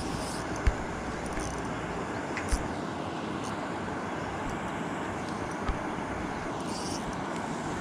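Steady rushing noise of a small boat on the water with its outboard motor running, broken by a few brief sharp knocks.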